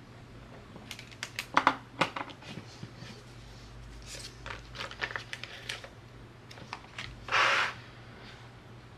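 Pen writing on planner paper, with a few sharp clicks early on and scratchy strokes, then a short rustle of the paper planner being handled near the end.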